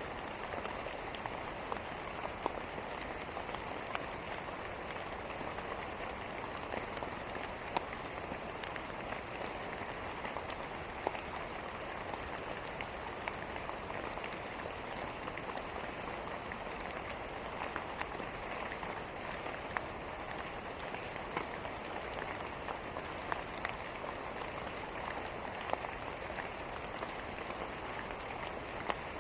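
Steady rain falling on a surface, an even hiss with scattered sharper drop hits.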